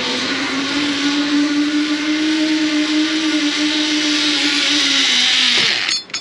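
Zipline pulley trolley running down a steel cable: a steady hum that rises slightly in pitch and grows louder, with a rushing hiss, as the rider approaches. It cuts off abruptly about six seconds in, with a sharp click as the rider reaches the landing platform.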